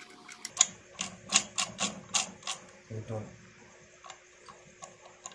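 Steel gearbox gears of a Rajadoot motorcycle engine clicking and clinking against each other as they are turned and seated by hand on their shafts in the crankcase. The clicks come thick and fast in the first half, then fade to a few light ticks.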